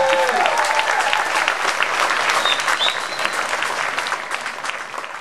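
Audience applauding and cheering at the end of a dance number, a few shouted cheers near the start, the clapping dying away toward the end.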